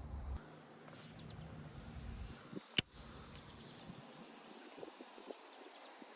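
Faint steady chirring of insects, crickets most likely, with one sharp click about three seconds in.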